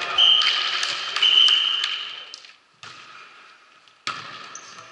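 A referee's whistle blows twice, a short blast and then a longer one of about a second, over scattered ball and court noises. About four seconds in comes a sharp thud as the volleyball is played on a forearm pass.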